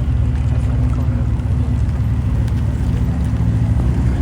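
Car engine idling steadily, a low rumble with an even pitch.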